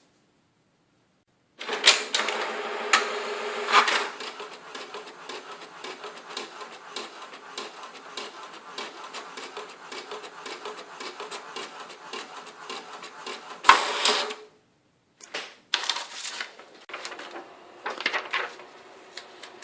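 A printer mechanism at work: motors whirring with dense, rapid clicking and rattling. It starts suddenly about one and a half seconds in, is loudest for the first couple of seconds, stops briefly near the three-quarter mark and comes back in shorter stop-start bursts.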